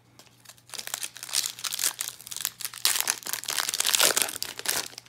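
Foil wrapper of a Magic: The Gathering Jumpstart booster pack crinkling in the hands as it is worked open, starting about a second in.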